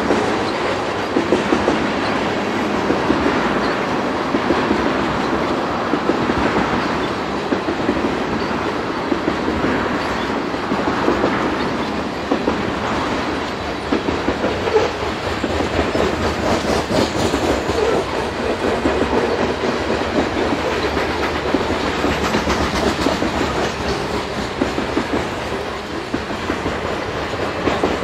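Freight train cars (tank cars and covered hoppers) rolling past, their steel wheels making a steady rumble on the rails with frequent clicking clacks.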